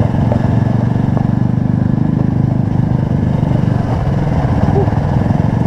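Sport motorcycle engine running steadily while riding along a rough dirt trail.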